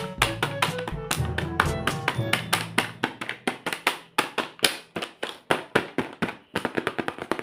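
Background music with a fast, busy percussive beat over pitched notes; the bass line drops away about three seconds in.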